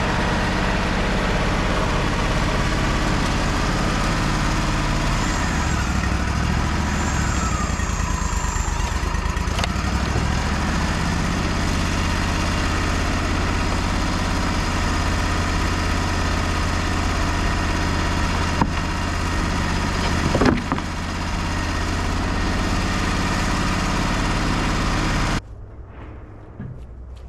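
Wood-Mizer LT35 portable band sawmill's engine running steadily, with a few gliding pitch changes in the first third. The sound cuts off suddenly near the end, leaving a much quieter background.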